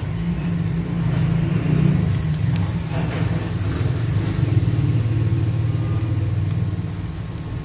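Batter-coated chicken drumsticks deep-frying in hot oil: a steady sizzle, with a few sharper crackles about two to three seconds in as another drumstick goes into the oil. Under it runs a loud, steady low rumble.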